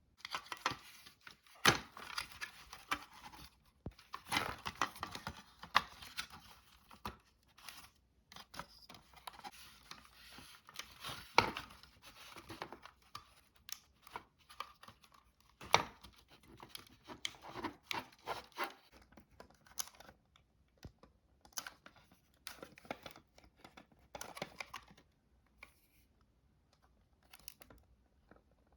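Hands working on a Dyson V6 cordless vacuum's plastic parts: irregular crinkling and scraping with many sharp clicks, thinning out to a few clicks near the end.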